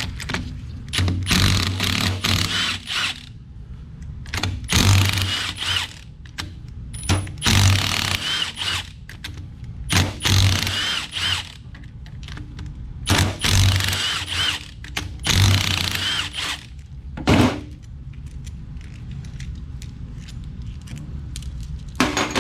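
Power tool running in about seven short bursts of a second or so, with quiet gaps between, unfastening the bolts of a TrueTrac limited-slip differential case during teardown.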